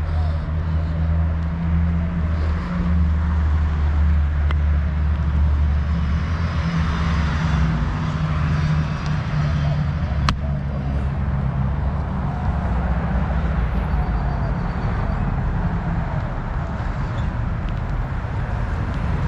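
Steady rumble of road traffic with a low engine hum, and a single sharp click about ten seconds in.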